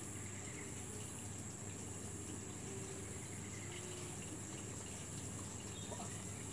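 Outdoor ambience of insects giving a steady, unbroken high-pitched drone, over a low, even background hum.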